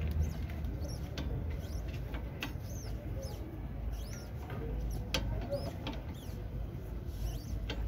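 Scattered short metallic clicks and scrapes from an L-shaped socket wrench turning a suspension arm bolt in the wheel arch, about one a second, over a low steady rumble. Birds chirp throughout in the background.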